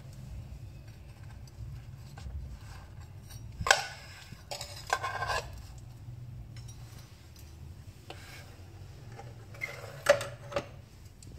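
Metal tongs clicking and knocking against a sandwich maker's plates and a ceramic plate as toasted sandwiches are lifted out. There are a few scattered knocks, the sharpest about ten seconds in, over a low steady hum.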